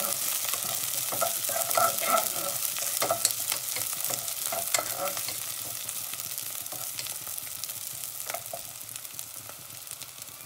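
Sesame oil sizzling as shallots, garlic, green chillies and curry leaves fry in a nonstick saucepan. A wooden spatula scrapes and clicks against the pan as they are stirred, mostly in the first half. The sizzle gradually quietens.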